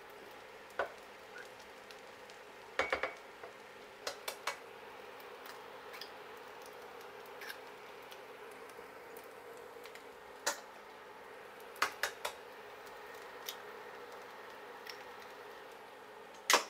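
Sharp taps and clinks of eggs being cracked on the rim of a nonstick pan and dropped into hot fried rice, a dozen or so separate clicks spread out, over a faint steady hiss.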